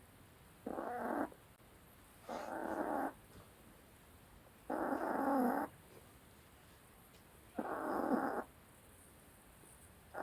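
Dog snoring: four snores a couple of seconds apart, each lasting under a second.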